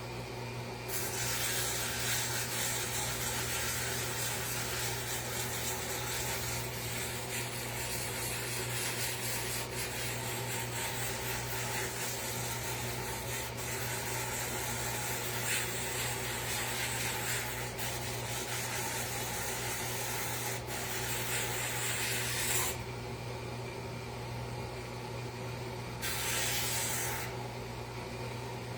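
A power tool turned down to low speed, running with a steady low hum while its abrasive bit sands and shapes the edge of a wooden sign in a long continuous pass, a dry rasping hiss. The abrasion stops about three quarters of the way through and comes back briefly for about a second near the end while the motor keeps running.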